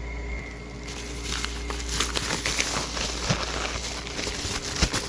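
Packaging crinkling and rustling with many small, irregular clicks as it is handled and opened, over a low steady hum.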